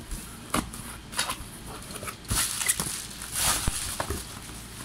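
Cardboard box and bubble-wrap packing being handled during unboxing: irregular clicks, knocks and scrapes, with two longer plastic crinkles around the middle.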